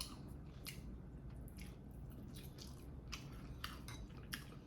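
Close-miked chewing of food, faint wet mouth clicks and smacks at irregular intervals, roughly two a second, over a low steady room hum.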